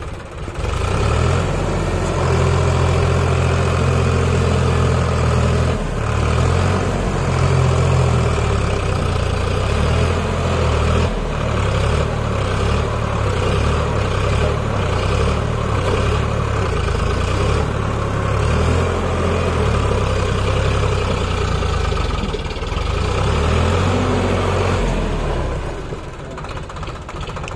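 Heavy diesel engine of a tractor running loud and close, its low pitch shifting up and down. It swells in about half a second in and drops off near the end.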